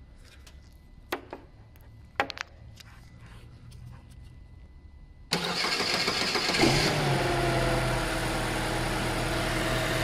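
A few light clicks as the jumper wire is pushed into the relay socket, then, about five seconds in, the starter motor suddenly cranks the engine with its power fed straight through a wire bridging terminals 30 and 87 of the bypassed starter relay. After about a second and a half the engine catches, and it settles into a steady idle.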